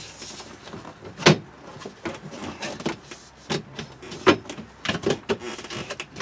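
Knocks, clicks and light rubbing as an RV window's interior trim ring is handled and pressed into place against the frame: one sharp knock about a second in, then several lighter taps.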